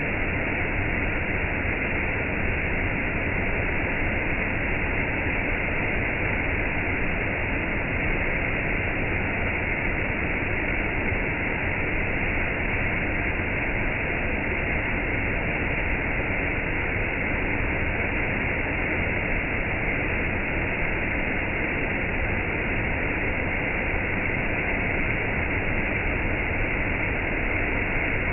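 Gentle rain and a waterfall: a steady, even rush of falling water with no single drops or splashes standing out.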